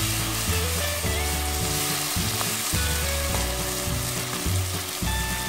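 Chopped tomato and green bell pepper frying with spices in oil in a pot, sizzling steadily as a wooden spatula stirs them. Soft background music with held low notes plays underneath.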